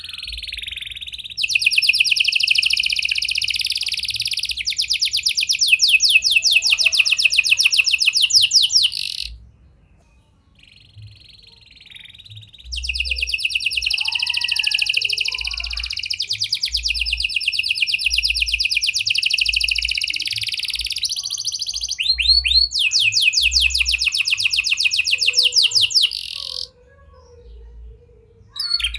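Red-factor domestic canary singing in long bouts of fast, rapidly repeated trills. The first bout runs about nine seconds and the second about fourteen, with a pause of a few seconds between them, and a new bout starts at the very end.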